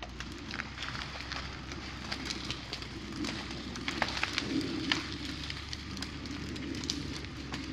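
A log being dragged uphill through brush and forest floor on a truck's skidding line: continuous crackling and snapping of twigs and branches, with the sharpest snaps about four to five seconds in, over a steady low hum.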